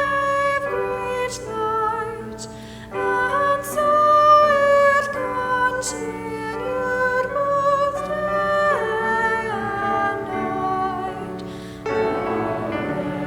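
Slow sung melody with musical accompaniment: a voice holds long notes with vibrato. Near the end a fuller choir sound comes in.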